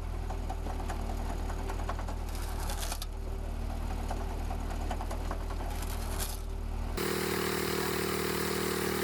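Engine-driven machine running with a steady low hum while wood scrapes and clatters through it. About seven seconds in, the sound switches abruptly to a different, steadier machine with a high whine and hiss.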